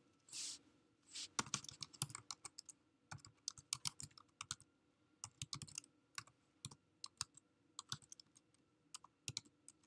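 Computer keyboard typing: quick, irregular runs of key clicks with short pauses between them, after a brief hiss near the start.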